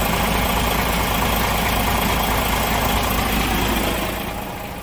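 Diesel engine of a DAF XG 480 truck, a PACCAR MX-13 inline six, idling steadily with a low hum, heard close to the chassis; it gets somewhat quieter about four seconds in.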